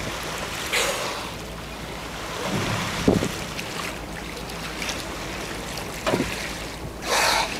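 Sea water washing around a boat with wind on the microphone, broken by several short splashes, the loudest near the end.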